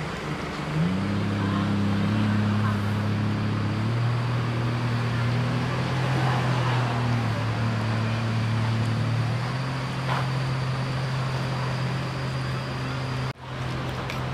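Motor vehicle engine running steadily with outdoor background noise. Its pitch rises about a second in, then holds with small shifts, and the sound breaks off briefly near the end.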